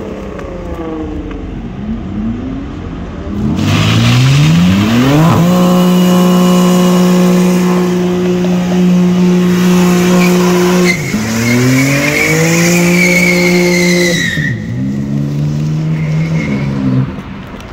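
BMW M4 Competition (G82) doing a burnout: its twin-turbo straight-six revs up about four seconds in and is held high for several seconds while the spinning rear tyres hiss and squeal. The engine then drops and climbs again twice, and fades near the end.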